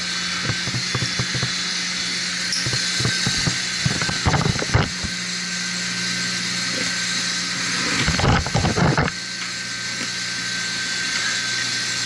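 Steady hum and hiss of a running centrifugal pump and motor. Over it come metallic clinks and knocks as a steel strainer basket and its housing cover plate are handled, with louder clusters about four and eight seconds in.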